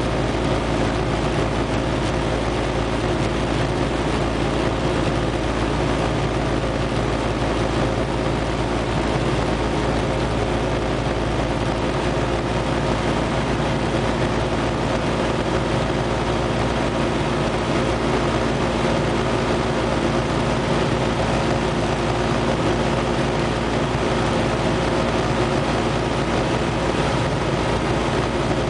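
Single-engine light aircraft's piston engine and propeller running steadily in cruise flight, heard from inside the cockpit as an even drone with a few held tones.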